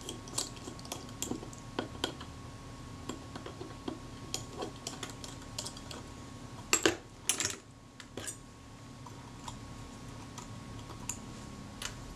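Small metallic clicks and taps of a small screwdriver turning out the tiny screws that hold the film-advance shaft bush on an old Kodak Retina camera's top plate. A few sharper clicks come about seven seconds in.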